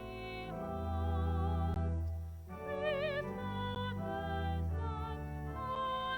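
Slow classical-style music: a melody line with wide vibrato held over long, low bass notes.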